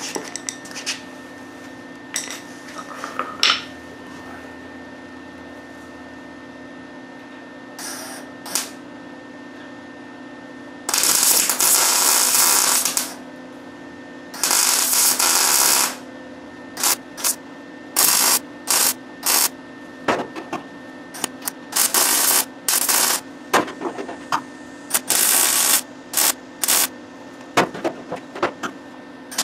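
MIG welder welding the 1966 Mustang's quarter-panel seam back together: two longer runs of arc about eleven and fourteen seconds in, then a quick string of short bursts under a second each, stitching the seam shut. A steady hum runs underneath throughout.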